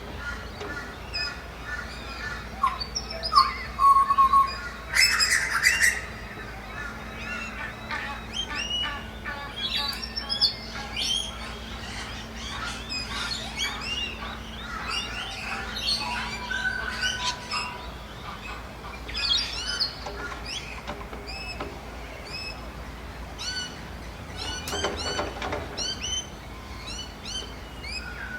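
Many birds chirping, whistling and calling over one another, as in a dawn chorus. A louder, harsh squawk comes about four to six seconds in, over a faint steady low hum.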